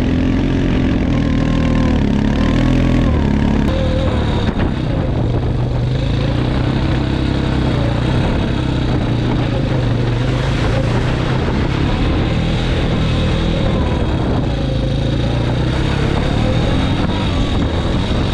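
Four-wheeler (ATV) engine running while riding, its pitch wavering up and down with the throttle.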